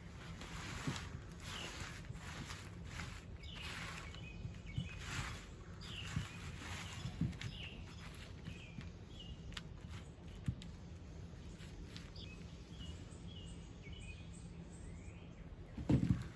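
Outdoor background noise with small birds chirping now and then, a few faint clicks, and a louder knock near the end.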